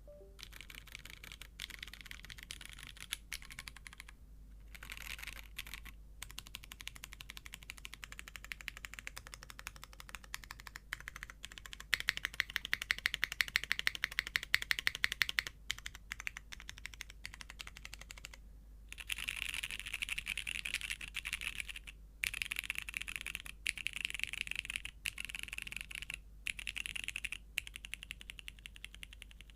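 Typing on a JJW Cloudline v2 custom tenkeyless mechanical keyboard with vintage Cherry MX Brown tactile switches on a polypropylene (PP) plate and GMK keycaps: rapid key clicks in runs, broken by several short pauses.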